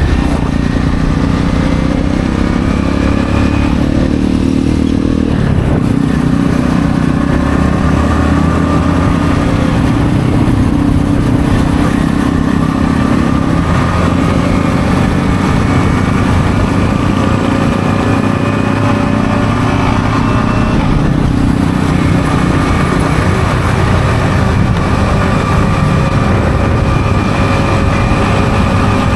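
Yamaha XSR155's single-cylinder engine through its stock exhaust while riding, its note rising as it accelerates and dropping back several times.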